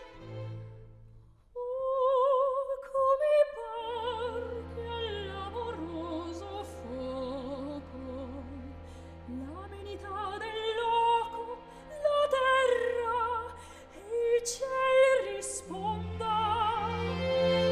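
Operatic classical music: a high singing voice with wide vibrato over held low accompanying notes, entering after a brief near-silent gap about a second and a half in.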